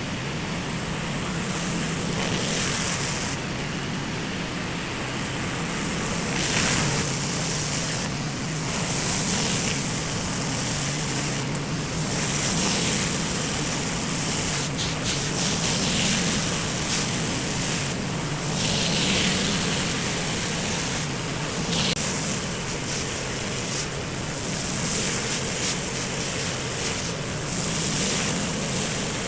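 Pressure washer running steadily under a constant low engine hum, its high-pressure water jet hissing onto a concrete driveway, the spray noise rising and falling every few seconds as the jet moves.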